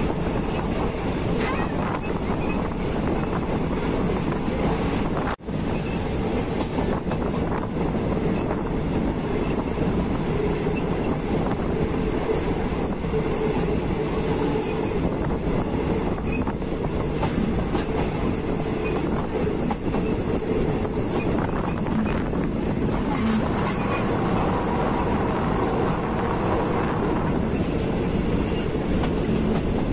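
Passenger train running along the track, heard from an open carriage doorway: a steady rumble and rattle of wheels on rails. The sound cuts out for an instant about five seconds in.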